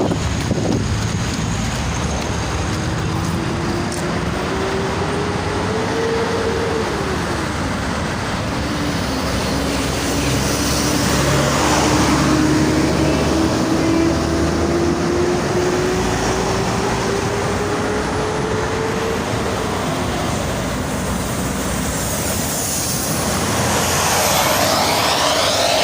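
Steady roadside traffic noise. A single whine climbs in pitch, drops once about seven seconds in, then rises slowly again for the next twelve seconds before fading.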